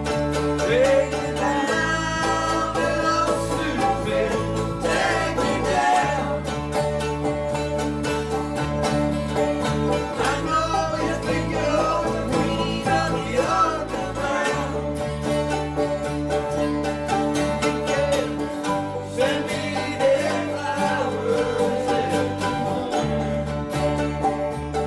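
Live country-style band: banjo, acoustic guitars and bass guitar playing together under a man's singing voice, with the bass changing notes every couple of seconds.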